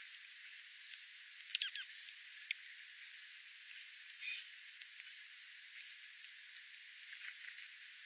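Small ground-feeding birds, dark-eyed juncos and sparrows, with scattered short high chirps and clicks over a faint hiss. A cluster of quick chirps comes about one and a half to two and a half seconds in, and a few soft ticks come near the end.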